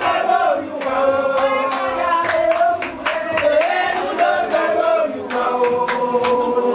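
Group of voices singing together, choir-style, over a steady beat of sharp strikes.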